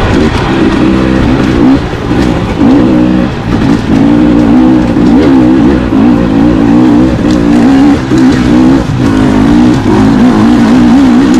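Dirt bike engine running loud under constant throttle changes, its pitch rising and falling every fraction of a second, with a few short drops near 2, 3 and 9 seconds in.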